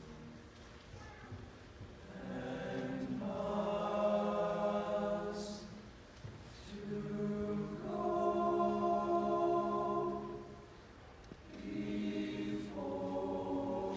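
Tenor-bass high school choir singing in harmony: long phrases of held chords that swell and ease off, with short breaks between phrases about six and eleven seconds in.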